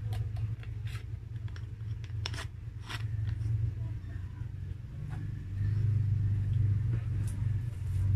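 A few light clicks and taps as a bottle is handled at the table close to the microphone, over a steady low hum that gets louder about five and a half seconds in.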